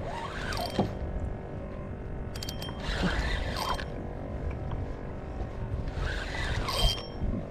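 Spinning reel's drag buzzing in three bursts as a large hooked fish, a stingray, pulls line off against it, over a steady low rumble of wind on the microphone.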